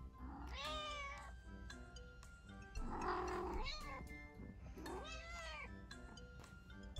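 Kitten meowing three times, each call about a second long and rising then falling in pitch, spaced about two seconds apart, over background music.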